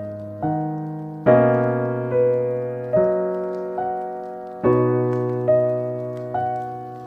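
Slow, gentle piano music: a note or chord struck roughly once a second, each ringing and fading before the next.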